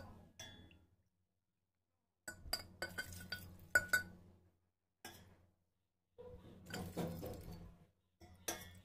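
A ceramic cup clinks against a steel pot and a glass fish bowl as water is scooped up a cupful at a time and poured into the bowl. The clinks come in a few short clusters with silent gaps between them.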